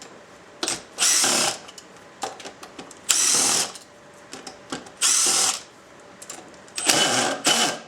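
Power drill/driver running in four short bursts about two seconds apart, backing out the four screws that hold the bottom plate of an orbital floor-sander attachment.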